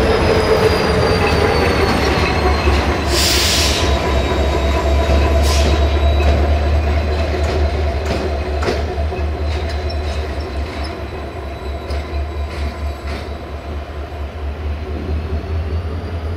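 EGM621 (class 65) GM-engined diesel locomotive running slowly on a shunting move, with a steady deep engine drone and faint high wheel squeal. There is a short hiss about three seconds in and occasional clicks from the wheels over rail joints, and the sound fades a little in the second half.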